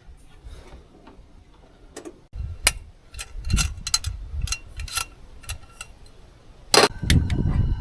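Campfire crackling, with irregular sharp pops over a low rumble that sets in a couple of seconds in; a louder burst comes near the end.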